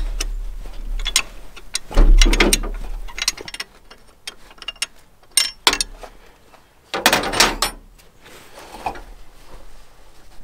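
Hand wrenches working the AC compressor mounting bolts in a car's engine bay: irregular metal clicks and clinks, with louder scraping clanks about two seconds in and again about seven seconds in.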